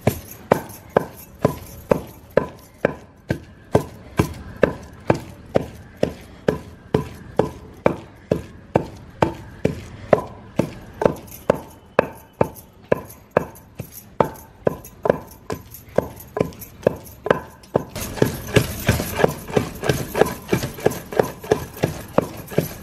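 Steady rhythmic knocking of hand food preparation for roti and chutney, a little over two strikes a second with a short ringing tone on each. A rougher background hiss joins near the end.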